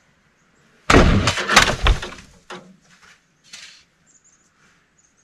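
Packed snow and ice sliding off a roof and crashing down: a loud crash with many sharp impacts about a second in, lasting about a second, followed by a few fainter knocks and scrapes.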